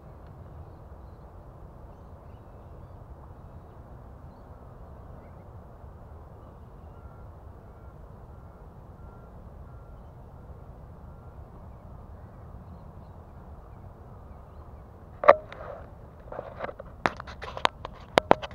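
Steady low background noise. About fifteen seconds in there is one loud sharp knock, then a quick run of sharp clicks and knocks near the end.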